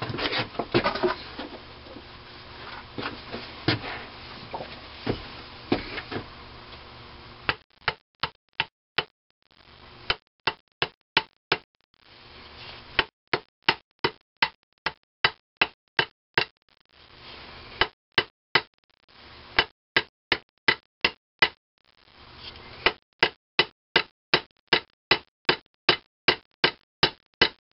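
Light metal-on-metal handling of engine parts, then runs of quick, even taps, about three a second in several bursts with short pauses: a small hammer driving the exhaust cam gear down its shaft on an IHC Type M engine's crankcase side plate until it seats.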